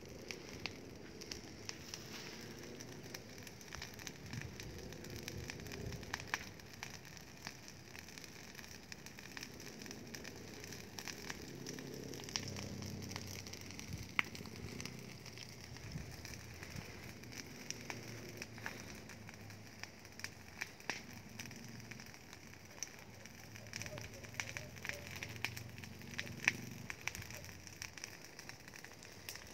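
Rubbish and dry grass burning, crackling with many scattered sharp pops.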